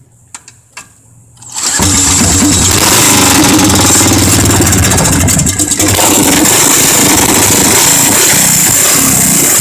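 Bored-over Briggs & Stratton Raptor 5 hp single-cylinder flathead racing engine with an open trumpet exhaust pipe, spun over with a cordless drill, fires about two seconds in and keeps running loudly, dipping briefly near the middle. It has just been freed from being seized, with a cleaned carburettor, and is still untuned.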